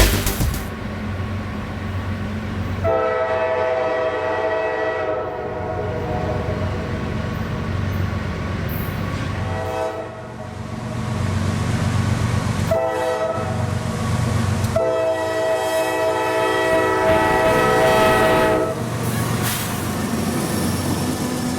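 Train horn sounding the grade-crossing pattern: two long blasts, a short one about thirteen seconds in, and a final long one, each a chord of several notes. A diesel locomotive's low rumble runs underneath.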